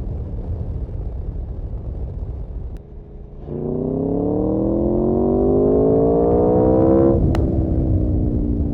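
Aprilia Tuono V4 motorcycle engine under way. After a brief dip it pulls hard, rising steadily in pitch for about four seconds. A sharp click comes near the end, and the engine note drops slightly and carries on.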